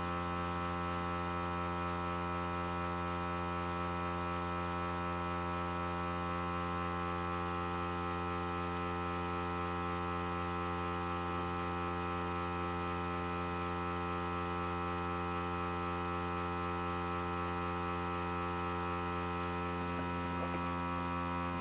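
Small Dinair airbrush makeup compressor running, a steady electric hum, supplying air to the airbrush gun as foundation is sprayed.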